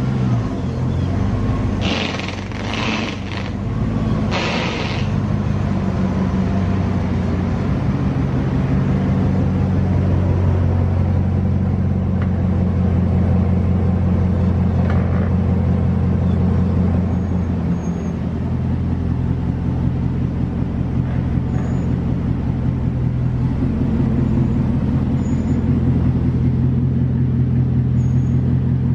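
Lexus SC400's 4.0-litre 1UZ-FE V8 idling steadily, with a few short bursts of noise in the first five seconds.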